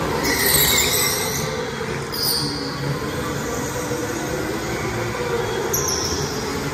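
Electric go-karts running on an indoor concrete track, their tyres squealing through the corners: a loud squeal about half a second in, another just after two seconds, and a shorter one near the end.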